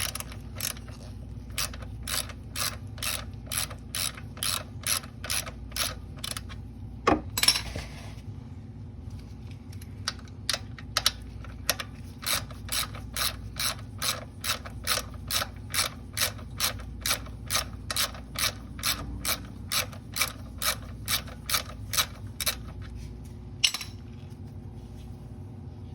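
A ratchet wrench with a 14 mm socket is clicking steadily, about two to three clicks a second, as it backs out the oil drain plug of a 2012 Lexus RX 350. The clicking breaks off briefly about a third of the way in with a short scrape, then resumes until shortly before the end.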